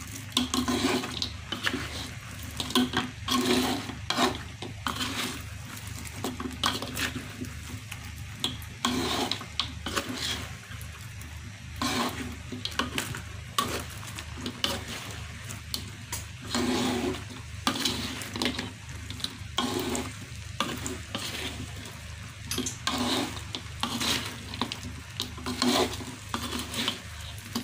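Spatula stirring and tossing fried battered squid in a wok, repeated scraping strokes against the pan with a light sizzle, mixing the salted-egg sauce evenly through the squid.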